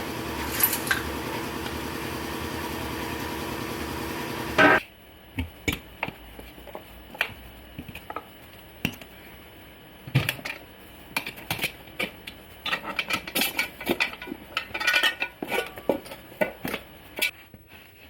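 A steady machine hum that cuts off suddenly about five seconds in, followed by scattered metallic clinks and knocks as tools and motorcycle parts are handled during a teardown.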